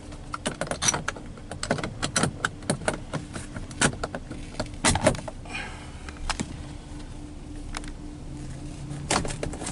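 Irregular clicking, rattling and knocking of car interior fittings being handled, in a quick run for about five seconds, then a few scattered clicks and a short cluster near the end, over a faint steady hum.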